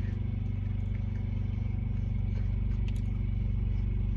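Steady low hum of a truck's engine running, heard inside the cab, with a few faint small clicks.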